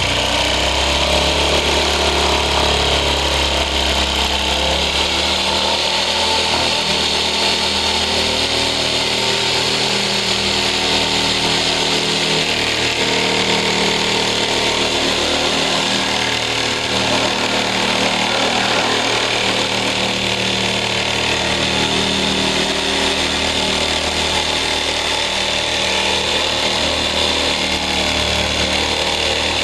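A power tool cutting through a fiberglass ram air hood, its motor running with a steady, slightly wavering high whine and no pauses.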